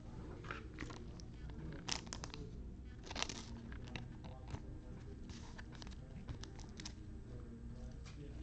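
Trading cards being handled and a foil card-pack wrapper crinkling: short scattered crackles and rustles, loudest about two and three seconds in, over a steady low background hum.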